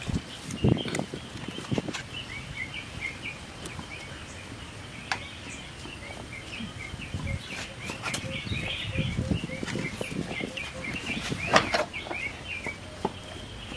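Birds chirping in many quick, short notes, with a few sharp knocks and thuds, the loudest near the end.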